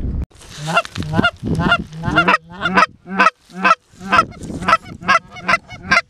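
A loud, rapid series of Canada goose honks, about three a second, starting a moment in.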